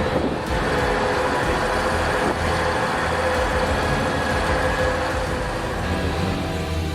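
A heavy machine's engine running steadily at a constant pitch.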